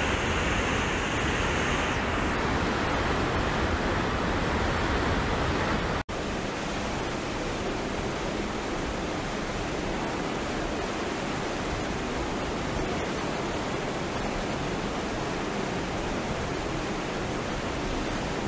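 Steady rushing of a river in flood, fast turbulent floodwater churning along the bank. The sound cuts out for an instant about six seconds in, then carries on a little quieter.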